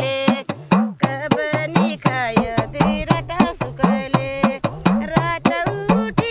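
Pahari folk music: singing over a quick, steady hand-drum beat.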